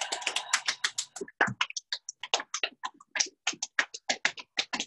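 Open hands slapping the sole of a bare foot in a quick, uneven run of slaps, several a second, to loosen the foot and raise circulation in the toes.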